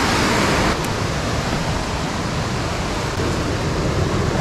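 Water rushing down a small rocky creek cascade: a loud, steady hiss that drops a little in level just under a second in.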